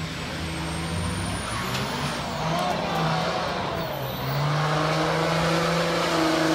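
Diesel pickup trucks launching down a drag strip at full throttle, their engines rising in pitch as they pull away.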